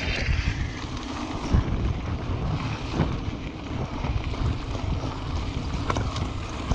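Wind rumbling on an action camera's microphone while a mountain bike rolls fast over a gravel track, with tyre noise and a few short knocks from the bike.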